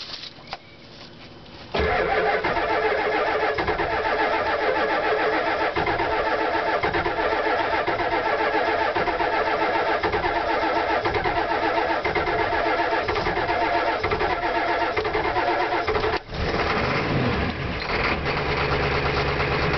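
Ford F-350 diesel pickup engine being cranked on the starter for about fourteen seconds without catching, a hard start. After a brief stop it cranks again and fires, settling into a steady idle near the end.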